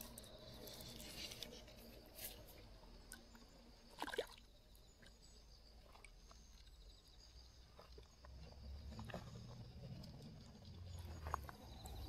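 Quiet outdoor ambience with a few faint splashes and short clicks from a hooked fish thrashing at the water's surface. The sharpest comes about four seconds in.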